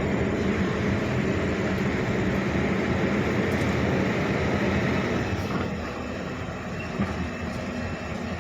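Heavy diesel machinery running steadily with a low, even engine drone, becoming somewhat quieter about five seconds in.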